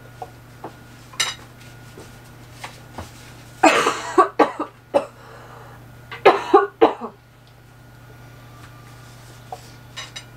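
A person coughing in two short fits of several coughs each, about four and about six seconds in: the cough of someone who is ill.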